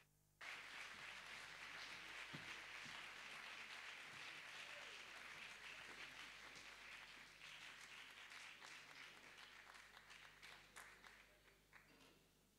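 Audience applauding, starting suddenly about half a second in and dying away near the end.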